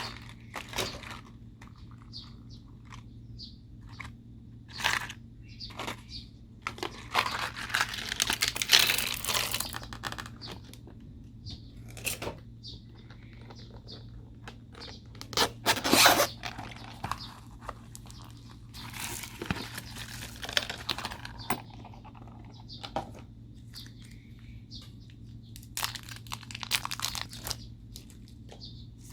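Slime being mixed and squished by hand: irregular sticky crackles and crunches in scattered bursts, over a faint steady hum.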